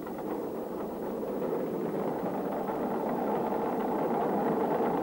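Fishing boat's engine and creel-hauling winch running steadily, slowly growing louder.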